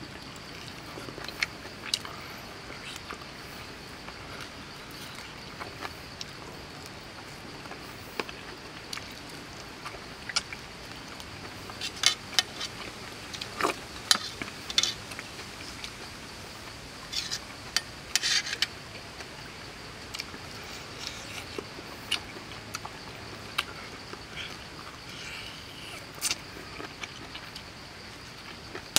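Close-up eating sounds: chewing and lip smacks with scattered short clicks, busiest in the middle, as a man bites and chews pieces of stir-fried snake meat. A steady high insect drone runs underneath.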